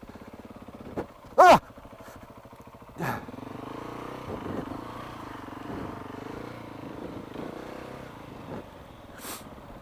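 KTM 690 single-cylinder engine running at low revs, the throttle opening and closing as the bike picks its way along. A short cry comes about a second and a half in, and a knock about three seconds in.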